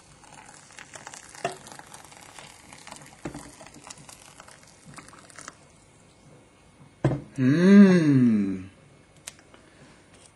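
Faint crackling and hissing of boiling water poured onto dry couscous in a bowl, soaking in. About seven seconds in comes a man's voice: one drawn-out wordless note that rises and falls in pitch for about a second and a half, the loudest sound here.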